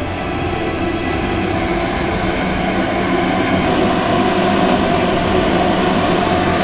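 Propane torch burner firing into a small firebrick forge with a steady rushing roar, heating a steel sword blade for forging. It grows a little louder about three seconds in.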